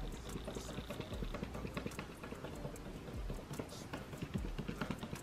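A small piece of card waved to fan wig glue dry at the hairline: soft puffs of air about once a second among faint, irregular rustles and clicks.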